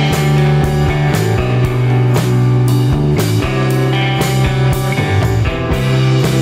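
Background music: a rock track with electric guitar and drum kit, playing on steadily with a regular beat.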